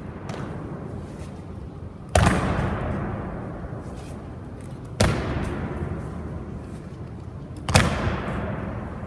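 Honour guard's boots striking the stone floor together in a slow ceremonial march: three heavy stomps about three seconds apart, each ringing on in the long echo of the round hall.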